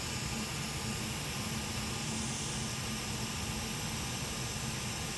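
Hot air rework station blowing a steady stream of hot air onto a graphics card's shorted DrMOS power-stage chip to melt its solder, with a low hum under the rush of air.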